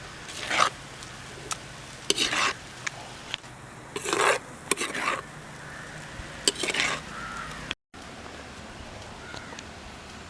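A spoon or ladle stirring and scraping in a cooking pot, in short separate strokes every second or two.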